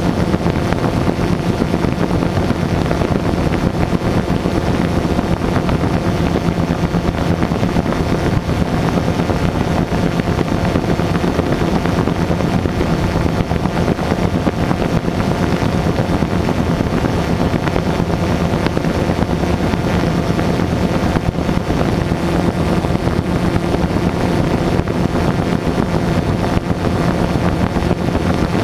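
FPV quadcopter drone's electric motors and propellers running steadily, an even hum with no change in pitch, picked up by the drone's own camera.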